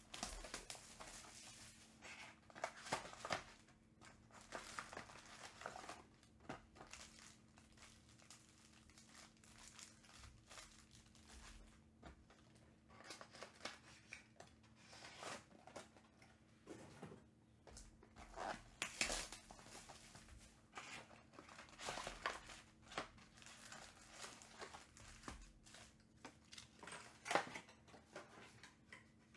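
Panini Select hobby boxes being torn open and their foil-wrapped card packs handled, giving faint, irregular bursts of crinkling and tearing. A faint steady hum sits underneath.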